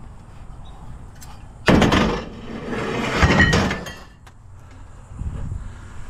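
Scrap being dropped or thrown with a loud crash about two seconds in, followed by a second, longer clattering rattle, then a few lighter knocks near the end.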